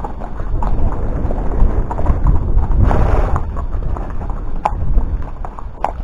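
A horse's hooves clip-clopping on a gravel track, heard through a helmet camera, with scattered sharp clicks of hoof on stone and a steady low rumble on the microphone. A brief breathy rush comes about three seconds in.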